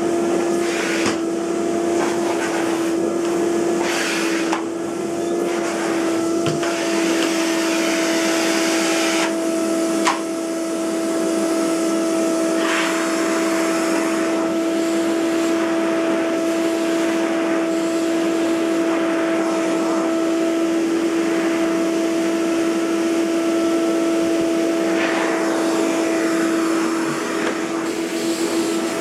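Electrolux Euroclean UZ930 vacuum cleaner's 1000 W motor running steadily with a constant whine over a rush of air. The rush of air swells and dips now and then, and there is one sharp click about ten seconds in.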